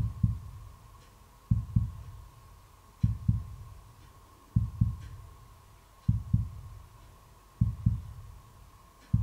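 Slow heartbeat sound effect: paired low thuds, lub-dub, repeating about every one and a half seconds over a faint steady high tone.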